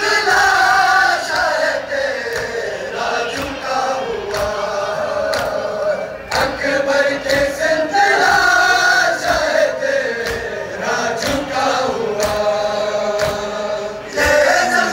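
A crowd of men chanting a Shia noha lament in unison, in long sung lines that rise and fall, with the slaps of chest-beating (matam) keeping a beat about once a second.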